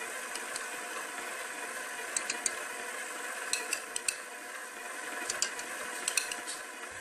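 Electric stand mixer running steadily, its beater mixing cake batter in a stainless steel bowl, with scattered light clicks as it knocks against the bowl.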